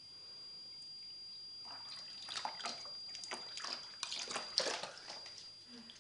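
Water trickling from a garden hose into a pool, then from about two seconds in a mink splashing and paddling through the water in a quick, irregular run of splashes.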